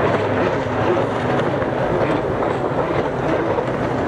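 Several racing jet skis running at high throttle through a turn, a steady mixed engine drone with the hiss of water spray.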